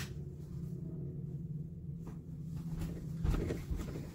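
A wall light switch clicks once at the start, over a steady low hum in a small room. About three seconds in come a few soft, low footsteps approaching.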